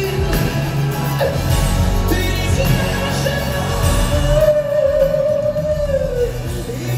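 A pop ballad played live by a band with a male lead singer, heard from the audience in a large concert hall. About four and a half seconds in, a long wavering note is held for nearly two seconds, then slides down.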